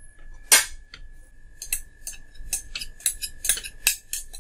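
A spoon tapping and scraping against a bowl as thick besan batter is scraped out and poured into an aluminium tin. It makes a run of light clicks, about three a second after the first strong one near half a second in, over a faint steady high tone.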